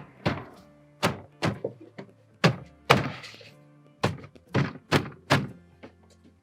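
About ten sharp thunks as a plastic interior door trim panel on a Ram 1500 door is pressed and tapped into place, its tabs and clips seating. Background music plays throughout.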